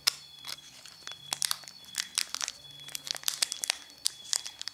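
Foil wrapper of a Pokémon TCG booster pack crinkling and crackling in the fingers as it is worked open by hand, a quick irregular scatter of sharp crackles.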